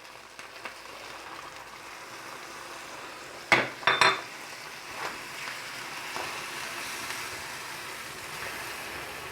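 Rice, grated tomato and spices sizzling in a pan with a splash of water added so the spices don't stick, stirred with a utensil. It knocks twice against the pan about three and a half seconds in, and once more lightly a second later.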